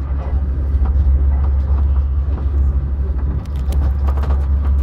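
Steady low rumble of a moving passenger train heard from inside the carriage, with a few faint ticks about three and a half to four and a half seconds in.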